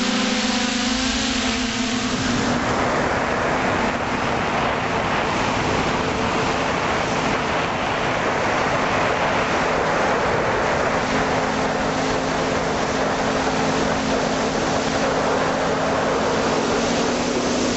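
Quadcopter drone's electric motors and propellers humming at a steady pitch, picked up by the drone's own onboard camera, with wind rushing over the microphone that grows loud about two seconds in and covers most of the hum.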